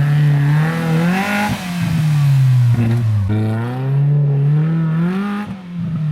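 Suzuki Vitara's engine revving off-road, its pitch climbing and falling several times, with a sharp dip about three seconds in.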